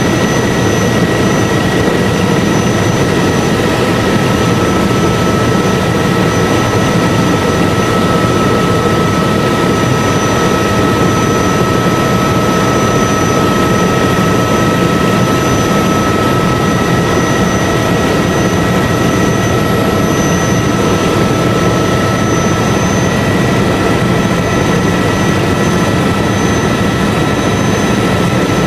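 Helicopter in steady flight, heard from inside the cabin: constant loud engine and rotor noise with several steady high-pitched whining tones running through it.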